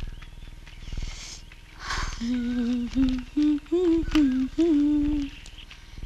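A voice humming a slow, wordless tune in short held notes, with a soft low thud about once a second beneath it and scattered short high chirps.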